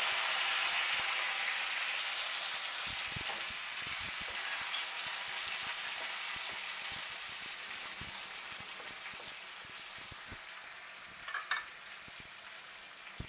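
Sliced tomatoes sizzling in hot oil in a wok with fried garlic and dried red chillies. The hiss is loudest as they go in and slowly dies down as the oil cools, with scattered spattering pops throughout.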